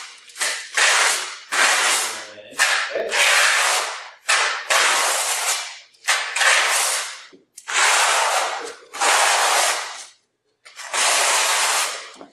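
Trowel scraping tile adhesive across the back of a tile while back buttering it: about ten rasping strokes, roughly one a second, each starting sharply and fading.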